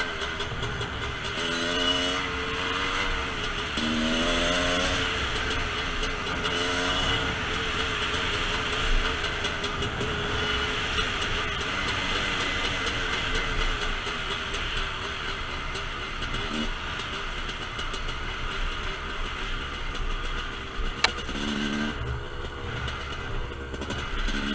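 TM Racing 250cc dirt bike engine running under way, its pitch rising in short revs several times as the throttle is opened. A single sharp click sounds near the end.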